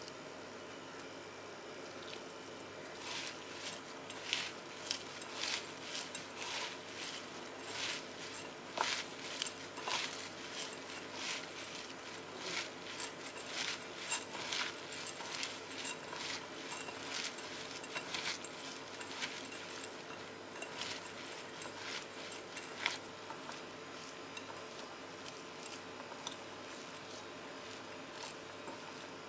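Hand mixing dry flattened rice flakes (aval) with grated coconut, jaggery and a little warm milk in a ceramic bowl. The flakes crackle and rustle in many small irregular ticks from about three seconds in, thinning out near the end, over a faint steady hum.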